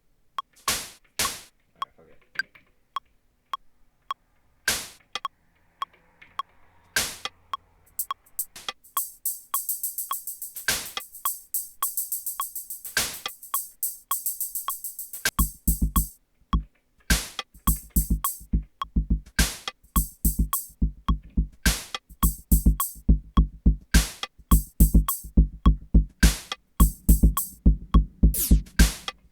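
Elektron Digitakt II drum machine playing a sequenced beat: sparse hits over a light steady tick at first, a dense rattling run of high hats from about 9 to 14 seconds, then a heavy kick and bass pattern drops in about halfway through and drives on steadily.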